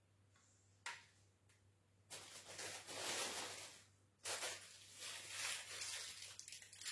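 Handling of tripod and ring-light parts: a sharp click about a second in, then two stretches of rustling and scraping as the pieces are handled and fitted.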